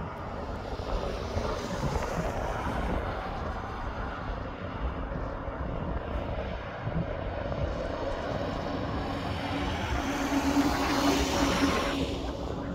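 Heavy trucks and a car driving along a highway: a steady rumble of diesel engines and tyres. It grows louder about ten seconds in as a tractor-trailer comes close, with a droning engine note.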